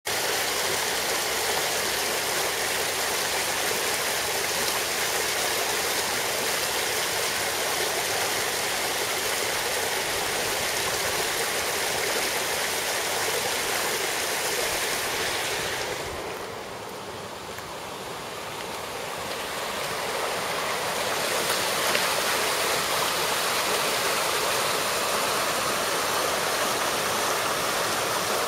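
Rain runoff rushing in a shallow, fast, foamy flow over a creek's frozen ice bed, the water with nowhere to go but on top of the ice. A steady rush that turns quieter and duller for a few seconds just past the middle, then comes back.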